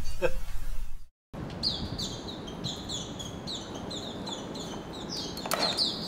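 Caged songbird singing a quick run of high, repeated down-slurred chirps that starts after a brief break a little over a second in, with a short knock or rustle about five and a half seconds in.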